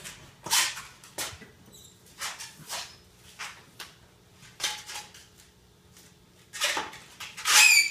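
Long inflated latex balloon squeaking and rubbing as hands handle it, in short squeaks about nine times, with a longer wavering squeak near the end.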